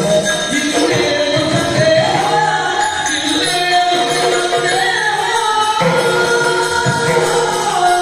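Yakshagana music: the bhagavata singing a long-drawn verse over the maddale and chende drums, with jingling hand cymbals keeping time.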